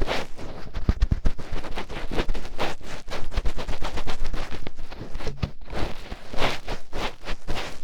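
A fingertip scratching and rubbing deep in an ear, right at the microphone: a dense run of crackling scrapes and sharp little clicks.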